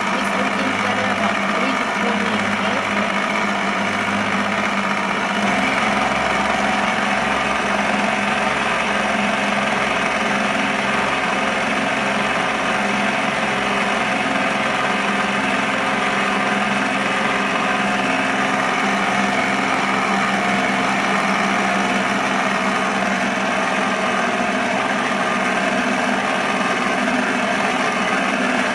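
Electric stand mixer running steadily on low speed, its beater churning flour into creamed shortening and sugar for cookie dough. The motor makes an even hum, a little louder from about five seconds in.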